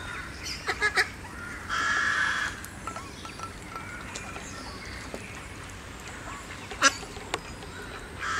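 Ducks calling: a quick run of short calls about a second in, then a longer raspy call around two seconds in. A single sharp click comes near the seven-second mark.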